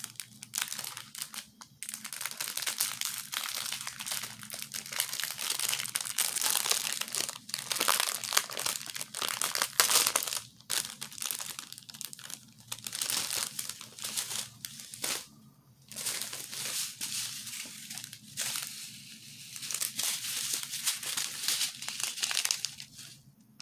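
Clear plastic packets of diamond-painting drills crinkling as they are handled and sorted by hand, on and off, dying away near the end.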